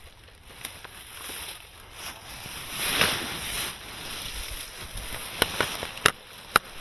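Dry leaf litter rustling and crunching as a player shifts and moves on the forest floor, swelling about halfway through, with a few sharp clicks near the end.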